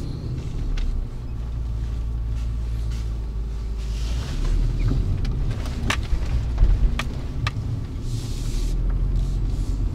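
Cabin sound of a BMW X5 E53 on the move: the three-litre petrol inline six and the road give a steady low rumble, with a few sharp knocks about six to seven and a half seconds in.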